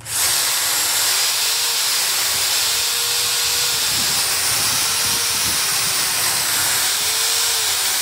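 Electric drill spinning a hair-dryer motor armature while 150-grit sandpaper is pressed against its worn shaft to smooth the bearing track: a loud, steady hiss over the drill's whine, starting abruptly.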